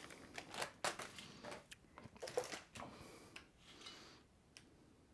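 Faint, scattered clicks and crinkles of the last few Bugles corn snacks dropping from a foil snack bag into a bowl as the bowl is handled, thinning out about four seconds in.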